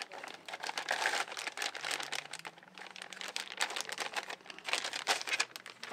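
Clear plastic bag crinkling and crackling as it is handled and pulled off a boxed electronic unit, in several bursts of rapid crackles.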